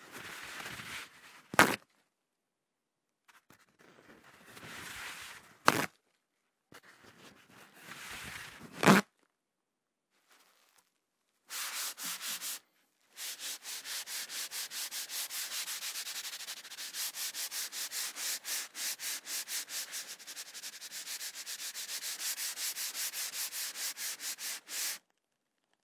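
Paper towel pulled off a roll three times, each pull ending in a sharp rip as the sheet tears away. Then a paper towel is wiped quickly back and forth across a surface, about four strokes a second.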